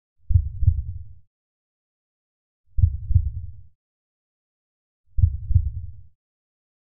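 Heartbeat sound effect: three deep double thumps, evenly spaced about two and a half seconds apart.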